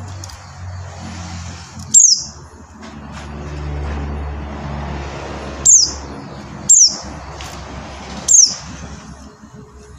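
Pleci buxtoni white-eye giving four short, sharp calls that sweep downward in pitch, with a steady low rumble in the background.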